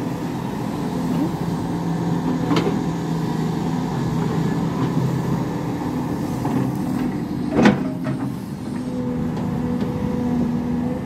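SDLG crawler excavator's diesel engine running steadily under hydraulic load as the machine swings and works its bucket, with two sharp knocks, the louder one about two-thirds of the way through.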